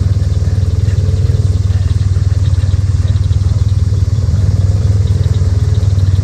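Side-by-side UTV engine running steadily with a low rumble, close by.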